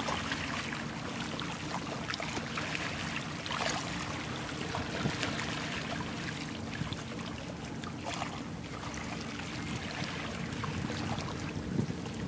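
Steady low engine hum of a vessel under way on the river, over water splashing and lapping against hulls.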